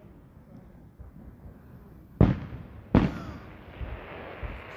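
Two aerial fireworks bursting a little over two seconds in, under a second apart: each a sharp bang that rolls away. After them a steady crackling hiss lingers, with a couple of fainter distant pops.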